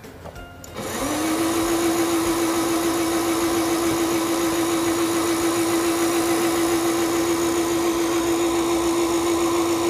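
Singer Stylist 7258 sewing machine's motor winding a bobbin: it starts about a second in, comes quickly up to speed and runs at a steady pitch with a hiss over it.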